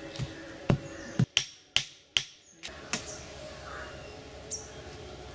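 Hammer blows on an old sledgehammer head, setting it into the ground as a makeshift anvil: about seven sharp, ringing strikes in the first three seconds, then they stop.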